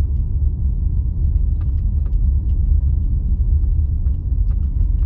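Steady low rumble of a car being driven slowly, road and engine noise heard from inside the cabin, with a few faint ticks.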